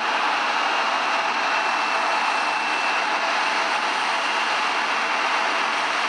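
Embraer E170's twin turbofan jet engines running at taxi power: a steady rushing hiss with a thin high whine that fades about halfway through.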